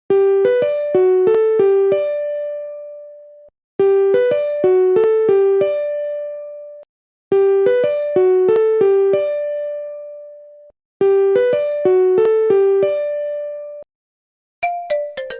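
Phone ringtone in an electric-piano sound: a quick run of notes ending on a long held note, played four times over with short silent gaps. Near the end a different, faster chiming ringtone begins.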